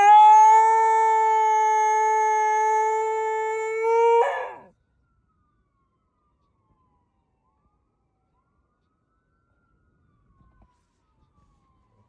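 A Chorgi dog howls one long, steady howl for about four and a half seconds, mimicking an ambulance siren. The howl turns up slightly in pitch and then breaks off.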